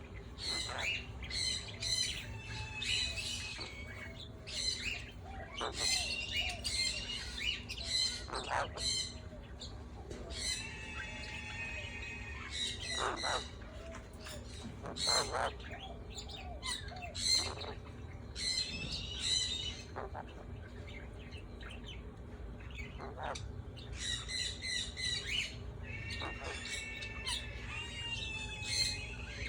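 Parrots calling: a continuous string of short chirps and squawks, with a couple of longer warbling calls, over a faint steady hum.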